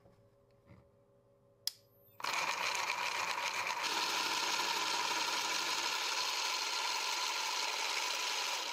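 A click, then about two seconds in a 775 DC motor starts and runs steadily, driving a single stage of a 3D-printed plastic planetary gearbox with a continuous gear whirr.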